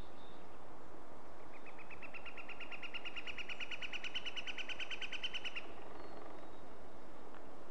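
A bird's rapid trill on one high pitch, starting faintly about a second and a half in, growing louder and stopping about four seconds later, over a steady hiss.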